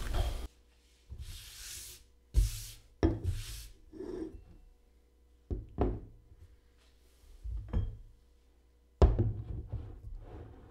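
Glassware and glass beer bottles being set down and shifted on a tabletop: several sharp knocks of glass bases against the table, spaced a second or two apart, with brief rustling in between.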